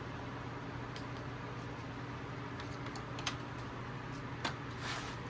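A few light clicks and taps, like a laptop being handled, over a steady low hum, with a short rustle near the end.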